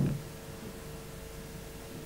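Pause between spoken lines: steady hiss and a thin, steady hum of the recording, after a short low sound right at the start.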